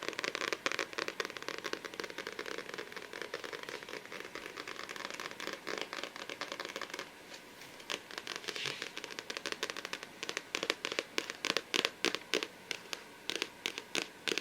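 Fingernails working a book close to the microphone: a dense, continuous scratching for about the first half, then quick, separate taps, several a second.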